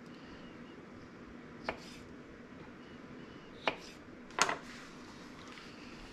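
Kitchen knife knocking on a cutting board, three sharp separate knocks: two about two seconds apart, then the loudest, a short double knock, soon after.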